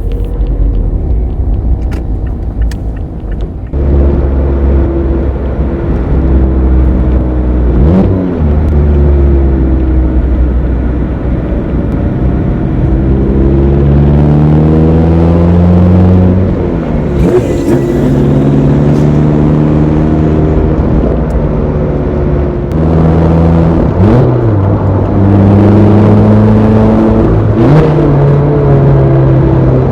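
Mazda ND Roadster's four-cylinder engine pulling under load with a manual gearbox: the revs climb steadily, then drop sharply at each gear change, about four times. It gets much louder about four seconds in.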